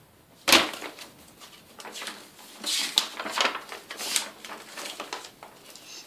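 Pages of a paper children's magazine being flipped and handled: a sharp flap about half a second in, then several softer rustles as more pages are turned.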